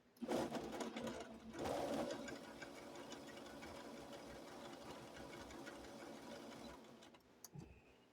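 Sewing machine stitching through a quilt. It starts with two louder spells in the first two seconds, runs steadily and stops about seven seconds in, followed by a couple of faint clicks.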